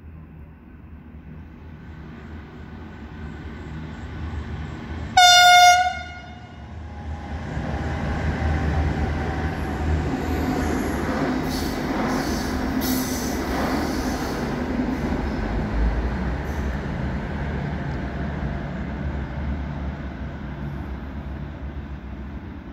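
V/Line VLocity diesel railcar approaching and passing through at speed. About five seconds in its horn gives one short, loud, high 'squeak'. Then comes the loud rumble of its engines and wheels, with clicks over the rail joints, fading away toward the end.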